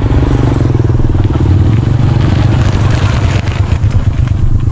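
Small single-cylinder underbone motorbike engine running loud and close as the bike rides past on a gravel track, with a fast, even pulsing.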